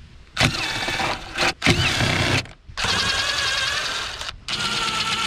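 DeWalt 20V cordless driver running a socket on the air intake tube's hose clamp to loosen it, in four short runs of motor whine that rises and falls in pitch with brief pauses between.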